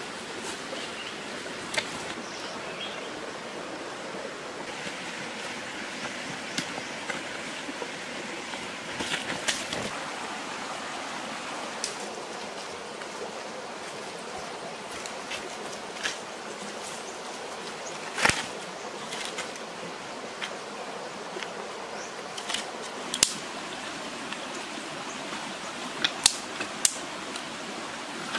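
A shallow stream running steadily over rocks, with scattered sharp clicks and knocks on top, several close together near the end.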